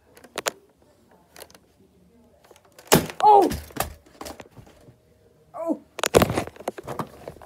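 Two loud thuds about three seconds apart, each with a short vocal cry or groan that falls in pitch, amid small clicks and rustles of handling.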